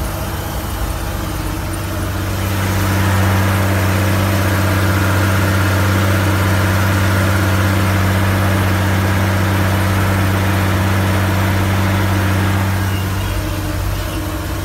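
Tractor engine running steadily under way, heard from inside the cab as a low, even hum. It grows louder a couple of seconds in and drops back near the end.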